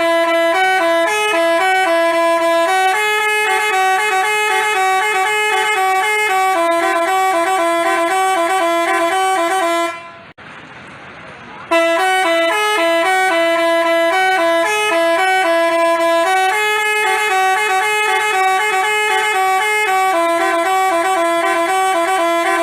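Telolet basuri bus horn playing a stepping melody of rich, horn-like notes. The tune cuts off abruptly about ten seconds in, then starts again with the same note pattern after a short pause.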